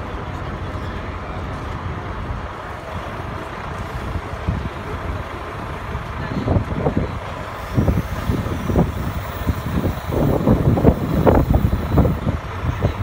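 Mobile crane's diesel engine running steadily while it slews a steel beam, with irregular louder low rumbles from about six seconds in.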